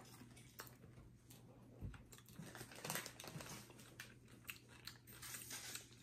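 Faint, irregular crunching and chewing of candy-coated chocolate (fudge brownie M&Ms), with a little crinkling of the wrapper.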